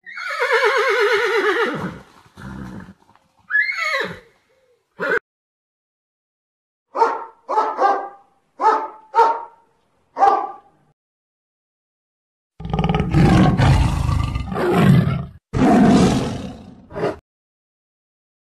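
A sequence of animal calls: a horse whinnying with a wavering pitch for the first two seconds, then a dog barking about six times, then a long, low, rough bellow from cattle near the end.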